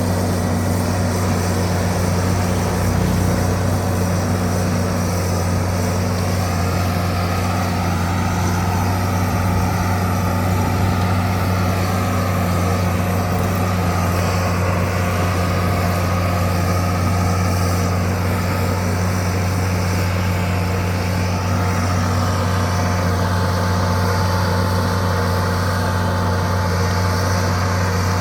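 Bulldozer's diesel engine running steadily at a constant pitch, with a fainter wavering whine above it through the middle stretch.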